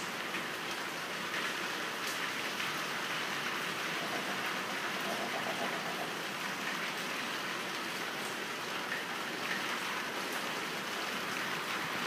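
Steady rain falling, an even hiss that holds throughout.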